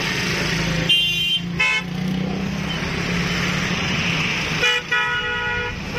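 Vehicle horns honking in street traffic: two short toots about a second in, then a longer honk near the end, over a steady low drone.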